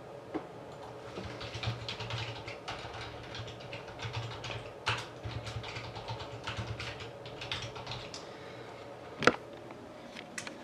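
Typing on a computer keyboard: a quick, irregular run of key clicks for several seconds, then one sharper click near the end.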